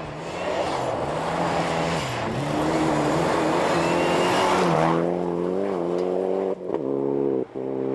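Rally car at speed on a gravel stage: its engine note climbs and falls through gear changes under a loud rush of tyres and flung gravel as it passes. About five seconds in the rush dies away and the engine is heard alone, wavering in pitch and breaking off briefly twice.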